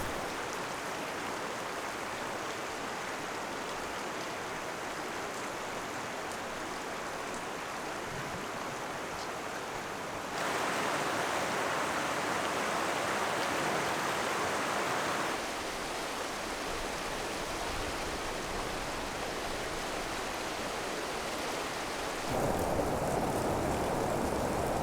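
Steady rushing of a flowing stream. It grows louder about ten seconds in, drops back about five seconds later, and rises again near the end.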